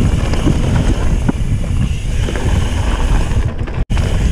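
Wind buffeting the microphone over the rumble and rattle of a mountain bike's tyres on a rough gravel trail at speed, with scattered small knocks. The sound cuts out for an instant near the end.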